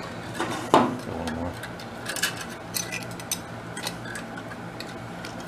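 Light metallic clicks and ticks of wire being twisted and bent by hand, scattered and irregular, with one sharper click under a second in.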